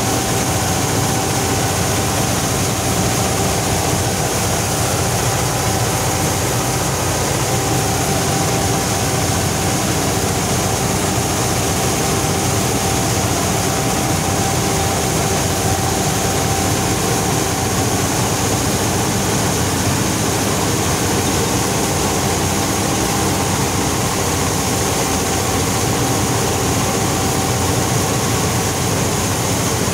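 Vladimirets T-25 tractor's air-cooled two-cylinder diesel running steadily under working load while pulling the Bizon Z020 harvester through wheat. The machine's drives add a steady whine to the engine noise, which is heard close up from the driver's seat.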